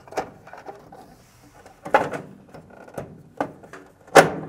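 Handling parts inside a dryer's base as a cover is fitted over the electrical connections: several sharp clicks and knocks of the cover and wiring against the frame, the loudest about four seconds in.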